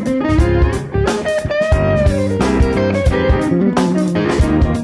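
Background music: electric guitar over a steady drum beat.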